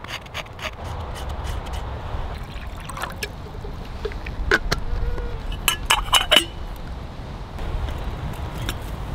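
Water poured from a glass jar into a small metal cookpot, trickling and splashing, with a cluster of sharp ringing clinks about halfway through.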